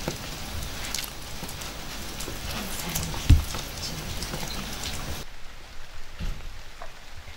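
Hot oil sizzling and crackling as food fries, with a dull thump a little over three seconds in. From about five seconds the sizzle turns duller, losing its highest crackle.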